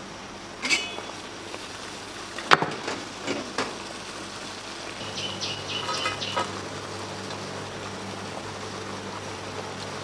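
Kitchen work sounds: scattered knocks and clinks over a steady low hum. The sharpest knock comes about two and a half seconds in, and a run of ringing clinks follows around the middle.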